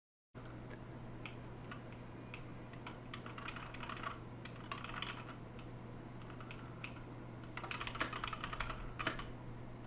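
Typing on a TADA68 mechanical keyboard with light Gateron Clear switches: scattered keystrokes, then a quick run of rapid key presses near the end.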